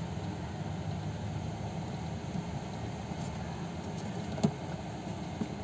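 Steady low background rumble, like distant traffic or a running machine, with one short click about four and a half seconds in.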